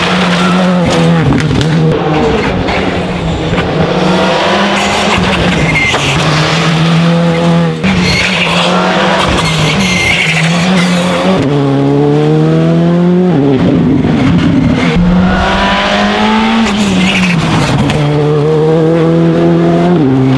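Rally car engine at full throttle on a stage, revving up in pitch and dropping back at each gear change, over and over, with tyre and road noise underneath.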